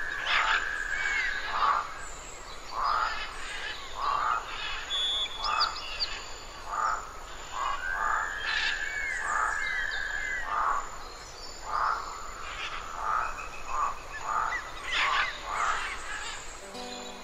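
Frogs croaking in short calls repeated about once or twice a second, with birds whistling and chirping over them; two long held whistles come at the start and again about eight seconds in.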